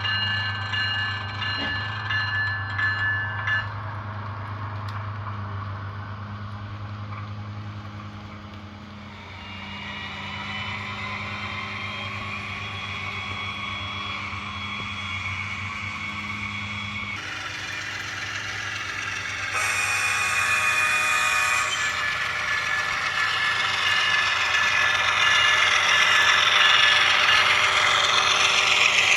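HO-scale Scale Trains Rivet Counter ES44AC model locomotive running, its onboard sound decoder playing a steady diesel engine sound through a small speaker. Several higher tones sound together for the first few seconds, and the sound shifts and grows louder about 17 and 19 seconds in.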